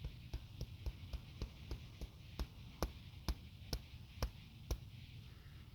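Hands tapping rhythmically on the body in a self-percussion exercise: quick light taps about four a second, with heavier taps about twice a second from midway, stopping near the end.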